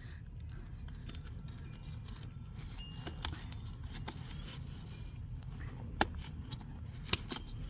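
Light handling noises, scattered faint clicks and rustles over a steady low rumble, with two sharp clicks about six and seven seconds in.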